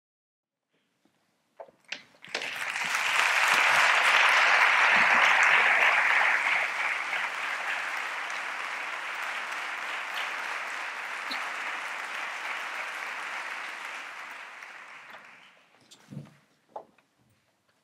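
Concert audience applauding: it starts about two seconds in, is loudest for the first few seconds, then tapers off and dies away near the end, leaving a few scattered soft knocks.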